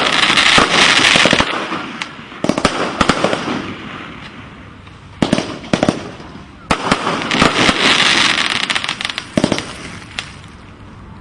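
Fireworks going off in volleys: rapid bangs followed by dense crackling, in several waves of a second or two, with quieter gaps between them.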